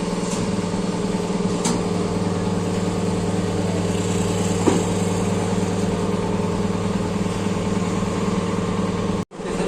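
A motor or engine running steadily at an even pitch, with a couple of light clicks over it. The sound cuts out for a moment near the end.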